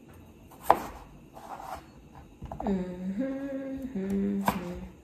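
A sharp kitchen knock about a second in. Then a woman hums a few long held notes, stepping up and back down in pitch for about two seconds, with another click just before she stops.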